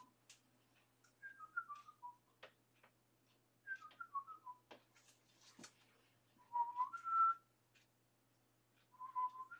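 A person whistling short runs of notes, twice a quick falling phrase of four or five notes and then two shorter two-note calls, as a call for the cats to come in. Several faint clicks sound in between.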